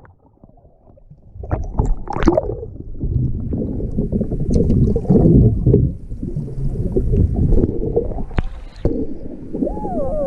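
Water splashing and churning around a kayak as it capsizes and is rolled back up in an offside roll attempt. The sound starts after a brief lull of about a second and a half and goes on in irregular surges.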